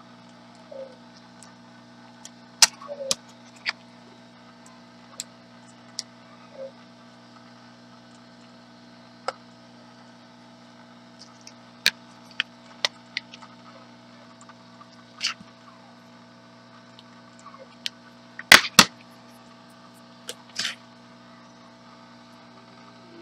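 Small sharp clicks and taps of an iPhone 6 Plus logic board being handled and fitted into a test housing, the loudest a quick pair of clicks about eighteen seconds in, over a steady electrical hum.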